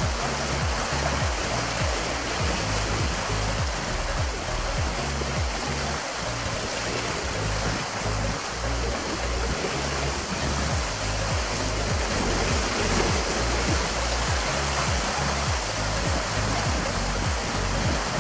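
Wind-driven lake water lapping and splashing at the shore in a steady rush, with wind rumbling low and unevenly on the microphone.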